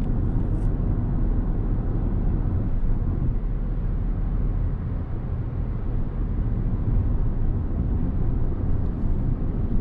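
Steady low road and tyre rumble inside the cabin of a Toyota Corolla Touring driving at speed.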